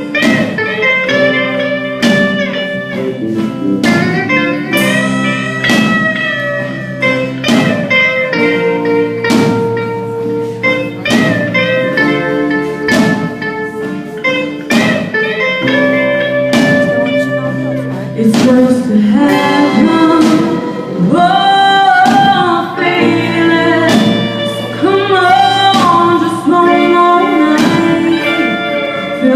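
A live rock band plays a slow original song: a female lead voice sings over electric guitar, bass and drums keeping a steady beat. The band gets louder about 18 seconds in.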